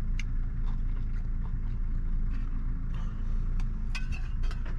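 Steady low rumble of an idling vehicle engine, with a quick cluster of light clicks and scrapes about four seconds in, like a fork against a tin can.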